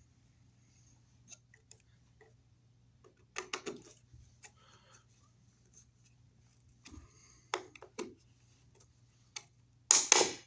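Scattered clicks and small taps of a screw being tightened by hand with a screwdriver into a plastic wire-mold outlet box, with a louder knock near the end.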